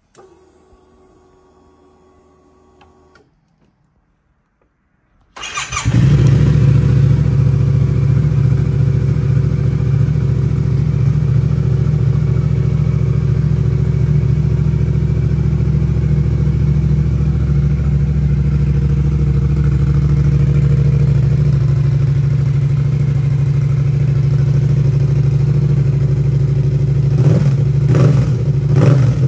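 Yamaha Tracer 700's parallel-twin engine with an aftermarket Scorpion exhaust starting up after a faint hum and a short pause, catching about five seconds in and then idling steadily with a deep, even note. It is briefly blipped a few times near the end.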